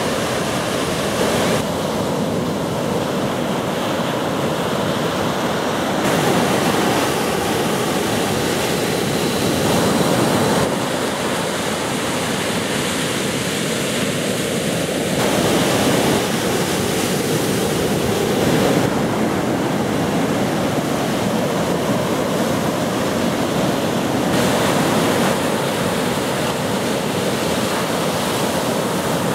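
Ocean surf breaking and washing in, a steady rushing noise that shifts abruptly in tone every few seconds.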